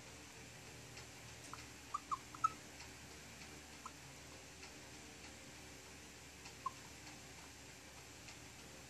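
Marker pen writing on a whiteboard, squeaking in short high chirps: a quick cluster of three about two seconds in and one more near seven seconds, over a faint steady hum.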